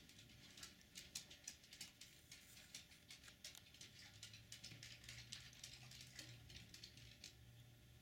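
Faint, irregular tapping, a few taps a second: a red-bellied woodpecker pecking at a suet cake in a wire cage feeder. A low steady hum comes in about four seconds in.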